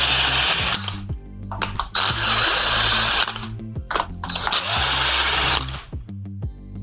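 A cordless screwdriver with a 13 mm socket runs in three short bursts of one to two seconds each, with brief pauses between them, as it backs the bolts out of the gate motor's lower housing. Background music plays underneath.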